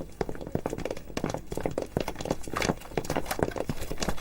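Several people's hard-soled footsteps on a hard floor: a quick, irregular run of clicks.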